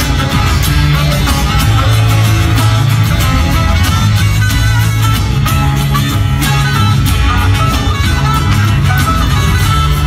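A rock band playing live, loud and steady, with a saxophone soloing over bass guitar and drums.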